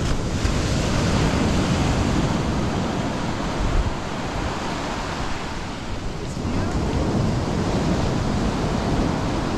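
Ocean surf washing onto the beach, swelling, easing about halfway through and swelling again, with wind rumbling on the microphone.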